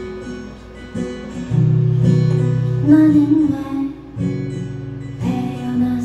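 Steel-string acoustic guitar strummed and picked, changing chords every second or two.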